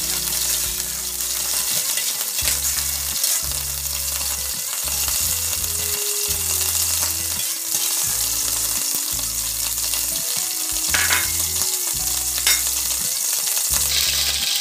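Annatto-coloured oil sizzling in a hot aluminium wok while a slotted spatula stirs it, with a couple of short scrapes of the spatula on the pan near the end.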